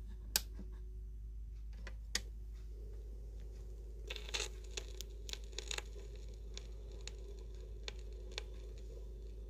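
Suitcase record player starting a 45: a couple of handling clicks, then a faint steady hum from the turntable about a third of the way in. The stylus drops onto the record about four seconds in, followed by scattered crackles and pops from the lead-in groove.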